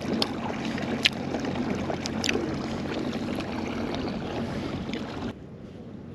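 Pedal-drive kayak moving slowly through calm water: a steady hum from the drive with water swishing along the hull and a few light clicks. It cuts off abruptly about five seconds in.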